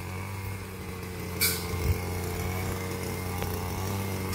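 Small two-stroke engine of a brush cutter running steadily at working speed as grass along the tracks is cut. There is a brief hiss about a second and a half in.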